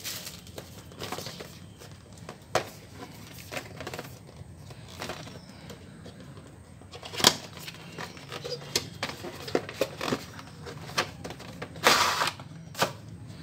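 Handling a cardboard headphone box and its torn plastic shrink-wrap: scattered light taps, clicks and crinkles. There is a short rustling scrape near the end as the inner tray slides out of the box sleeve.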